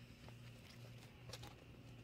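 Near silence: a steady low hum with a few faint light clicks and scratches from young kittens' claws on a quilted blanket as they tussle.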